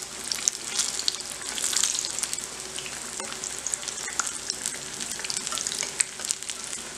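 Besan-battered vegetable pakoras deep-frying in hot oil in an iron kadhai, a steady crackling sizzle full of small pops, given a second fry to make them crisp. A steel slotted spoon turns them, adding occasional faint scrapes and clicks.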